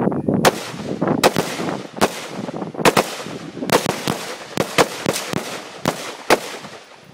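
M16 rifle shots fired one at a time by several shooters on a firing line: about a dozen sharp cracks at an uneven pace, mostly half a second to a second apart.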